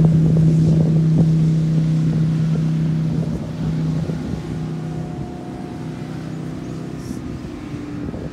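Motorboat engine droning on the river, a steady hum that grows quieter after about three seconds as the boat moves away.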